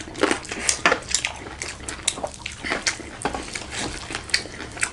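Close-miked eating sounds: irregular wet chewing and sharp mouth clicks.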